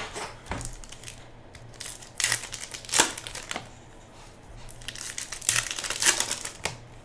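Plastic packaging crinkling and rustling in short, irregular bursts as it is handled, loudest about two to three seconds in and again near the end.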